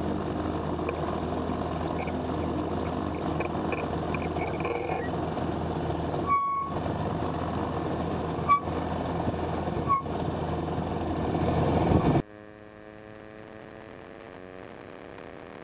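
Rotax 912S engine and propeller of a Zenith STOL CH 701 running steadily on the ground, with three short high electronic beeps a couple of seconds apart near the middle. About 12 seconds in, the sound drops suddenly to a quieter engine hum whose pitch rises slowly.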